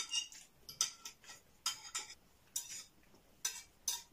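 Metal knives and forks scraping and clinking on plates as two people cut their food, in short, irregular strokes about once a second.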